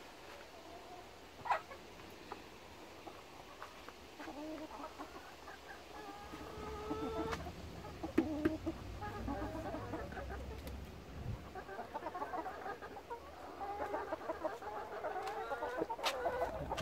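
Chickens clucking, a scatter of short calls that grows busier about six seconds in, with a few sharp clicks among them.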